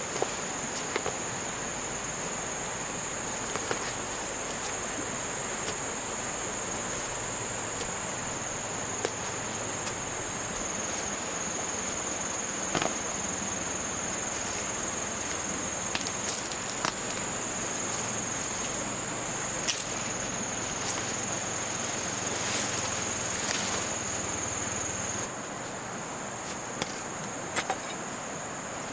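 Insects chirring in one steady, high, unbroken note, with scattered faint clicks and knocks. A low hum underneath stops about 25 seconds in.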